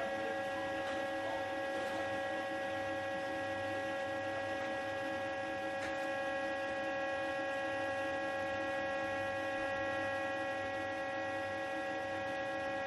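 A steady electronic hum of several held tones sounding together, coming in abruptly and staying unchanged.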